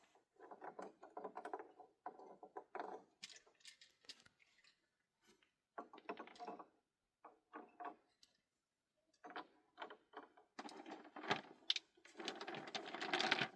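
Irregular bursts of clattering and rustling, objects being handled and knocked together, with a longer, denser stretch near the end.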